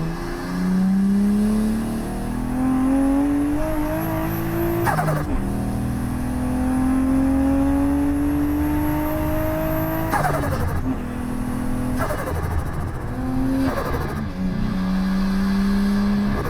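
Straight-piped Nissan RB20 turbo straight-six in an S13 accelerating hard through two gears, its note climbing with a rising turbo whistle. The turbo flutters at each shift, as it does with no dump valve fitted. After that come shorter throttle bursts and steadier running.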